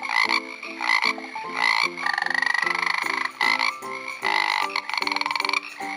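Strawberry poison dart frog calling: a run of short repeated chirps, then two longer buzzing trills of about a second each.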